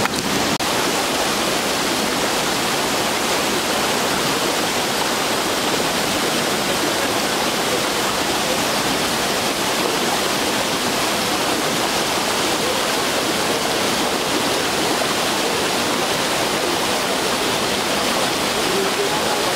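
Steady rush of water from a river falls: a loud, even hiss with no breaks.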